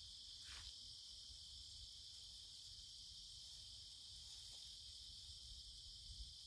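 Faint, steady high-pitched chirring of insects in the grass, over a low wind rumble.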